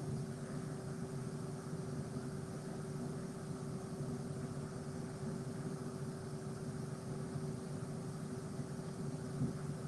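Steady background hum with a constant tone running through it and an even hiss, unchanging throughout.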